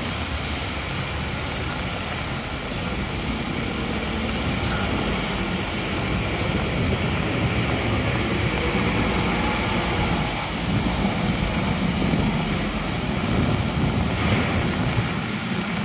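A city bus's engine running as the bus moves along close by, its rumble swelling through the middle, over a steady hiss of rain and traffic on the wet street.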